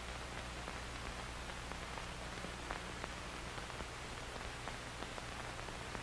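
Faint steady hiss and crackle with a low hum, the background noise of an old film soundtrack, with a few tiny clicks. No key clicks or Morse tones are heard.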